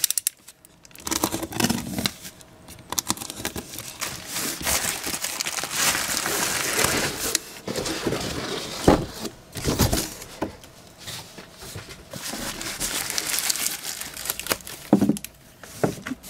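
Hands tearing open a parcel of plastic wrap, packing tape and cardboard: irregular crinkling, rustling and tearing with scattered clicks and a few sharper knocks.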